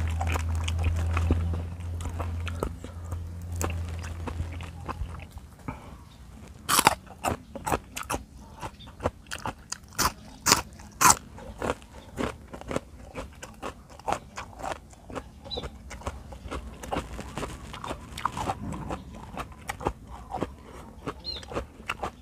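Close-up chewing and crunching of a raw cabbage leaf, with a run of loud, sharp crunches between about seven and eleven seconds in. A low, steady hum sounds during roughly the first five seconds.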